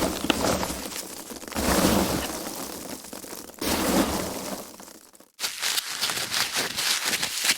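Foam packaging handled and squeezed, crunching and crinkling, with two heavier squeezes about one and a half and three and a half seconds in. After a brief gap, lighter, busier crackling handling follows.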